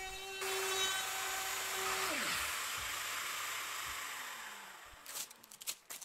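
Plunge router running, cutting a slot in elm burl, with a steady whine and hiss; about two seconds in the motor is switched off and spins down with a falling whine, and the hiss fades away. Near the end come a few short crinkly rustles as masking tape is peeled off the wood.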